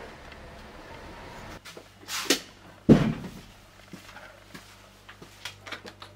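Knocks and clatter of things being handled: a couple of sharp clicks, then a heavy thump about three seconds in with a brief low ring. Light taps and rattles follow, ending as a cordless drill is lifted off a wall tool rack.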